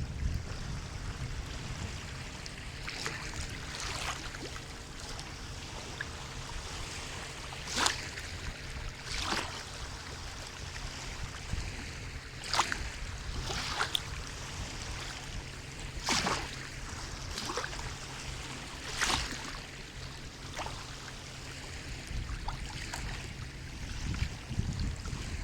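Sea water lapping and splashing, with short splashes every one to four seconds over a steady low rumble of surf.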